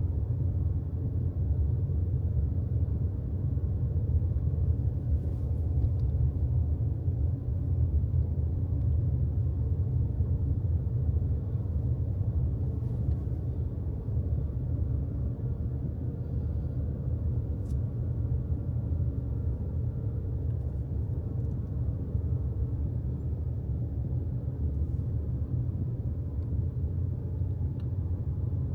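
Steady low rumble of a moving vehicle, like road noise heard from inside a car while driving.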